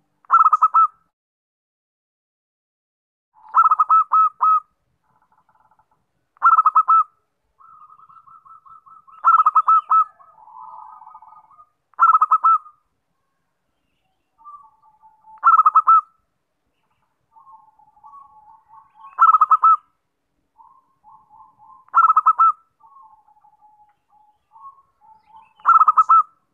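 Zebra dove (perkutut) calling: a loud, short rolling coo about every three seconds, nine in all, with softer stuttering trills in between.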